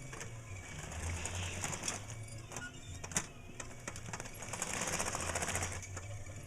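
Sheet-metal tinplate toy train cars clicking and rattling as they are handled and fitted onto the track, over a low steady hum.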